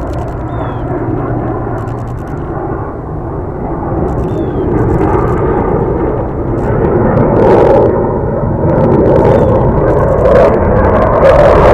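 A pair of low-flying fighter jets passing overhead: a continuous jet engine rumble that grows louder from about halfway through and is loudest near the end.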